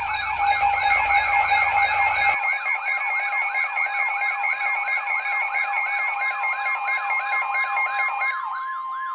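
Several electronic siren tones sounding at once: a fast yelp sweeping about four times a second over steady and warbling tones, with a low hum underneath that cuts out a couple of seconds in. Near the end the sirens fade and a single steady alert tone is left, the kind of tone that comes before a weather-radio warning.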